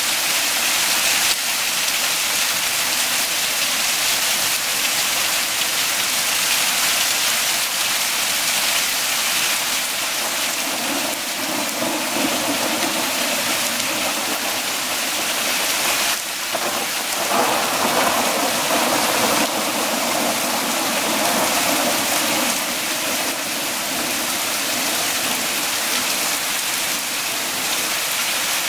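Heavy rain pouring steadily in a thunderstorm. A long rumble of rolling thunder builds past the middle and then fades.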